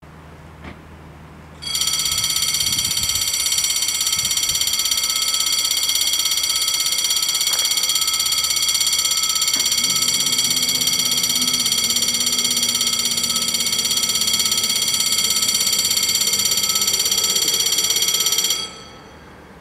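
Level-crossing warning bells ringing in a fast, even, high-pitched rattle, starting about two seconds in and cutting off near the end once the barriers are down. A low steady hum from the barrier motors joins about halfway through while the barriers lower.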